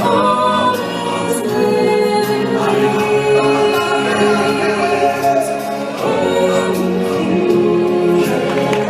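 Choir singing sustained, held notes over band accompaniment in a live stage-show musical number.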